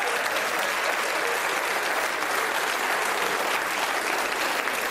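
Studio audience applauding steadily: many hands clapping at once.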